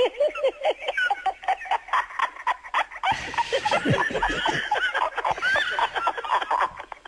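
Hearty, contagious laughter: a quick run of pitched ha-ha pulses that turns denser and breathier about three seconds in, then dies away near the end.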